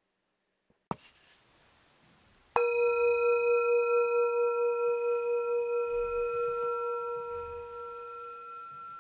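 Singing bowl struck once about two and a half seconds in, after a short click, then ringing on with several steady tones and a slow pulsing wobble as it gradually fades.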